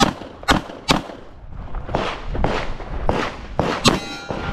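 Handgun shots fired in an irregular string during a shooting stage: several sharp cracks, some only half a second apart, others after pauses of about a second. A short ringing tone sounds near the end.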